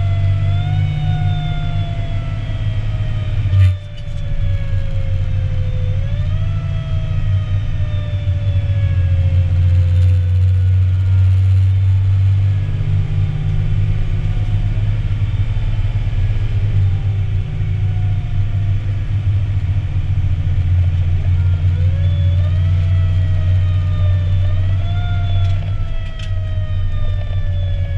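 Fire engine's engine running with a steady low drone, heard from inside the cab, while its mechanical siren is wound up again and again, each time climbing quickly and then slowly winding down. A sharp knock about four seconds in.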